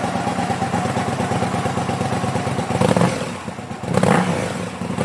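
Motorcycle engine running with a rapid even firing beat, starting abruptly and swelling briefly twice, about three and four seconds in.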